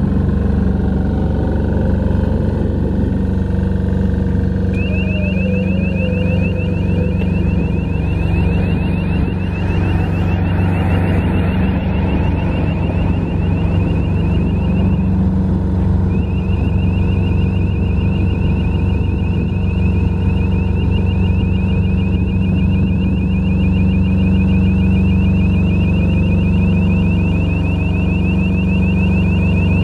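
Kubota three-cylinder water-cooled diesel engine of a mobile lighting tower's generator set running steadily. About five seconds in, a high, fast-pulsing beep joins it; the beep breaks off briefly midway and then resumes.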